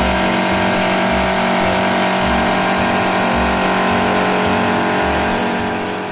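Industrial wood lathe running and cutting a spinning wooden spindle: a loud, steady machine drone of several held tones with a low pulse about once a second, fading out near the end.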